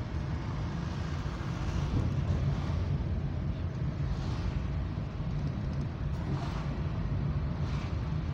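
Car driving at steady speed, heard from inside: a constant low engine and road rumble with tyre hiss, swelling faintly a few times.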